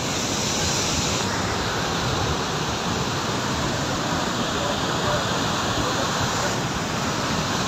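Muddy flash flood rushing down a gorge: a loud, steady rush of churning water, mud and debris.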